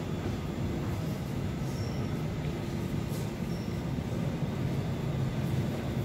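Steady low rumble of an Elizabeth line Class 345 electric train at an underground station platform.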